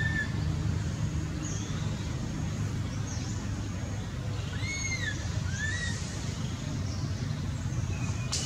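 A steady low rumble runs throughout. About five seconds in, two short rising-and-falling whistled calls sound close together, and faint high chirps come and go.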